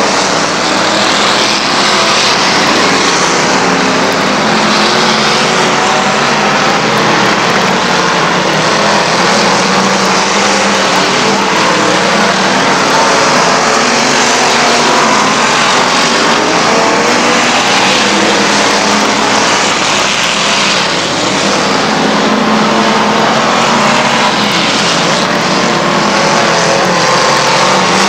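A field of street stock race cars running laps on a dirt oval, their engines at speed blending into one loud, steady engine noise.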